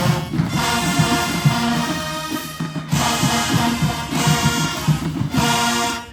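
Marching band playing loudly: brass with drums, in punchy phrases with short breaks about three and five seconds in, cutting off sharply at the end.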